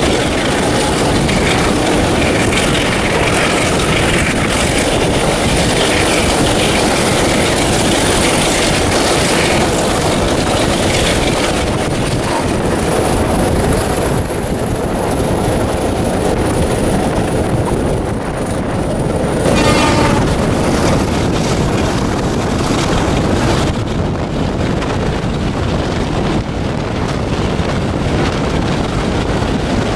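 Diesel-hauled train running on the line: a loud, steady mix of locomotive engine and wheels on the rails, with a brief pitched tone a little under two-thirds of the way through.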